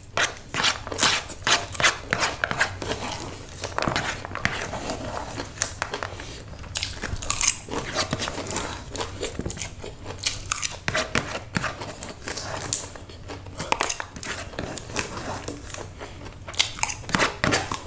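Close-up eating sounds: a mouthful of stir-fried egg noodles chewed and slurped with many quick wet mouth smacks, and now and then a metal fork against the paper noodle box.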